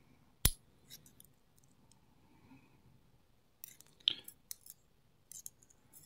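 Small metal parts of a pin-tumbler lock cylinder being handled as its springs are taken out: light metallic clicks and ticks. One sharp click comes about half a second in, then a cluster of lighter clicks around four seconds in and a few more near the end.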